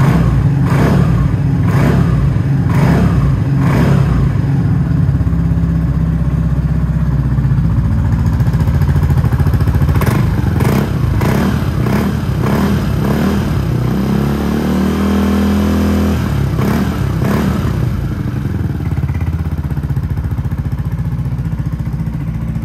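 Yamaha Majesty 155S scooter's single-cylinder engine running through an aftermarket MACMRD muffler, idling between repeated throttle blips. There are quick revs in the first few seconds and again around ten to thirteen seconds in, a longer rev about fifteen seconds in, and one more blip just after.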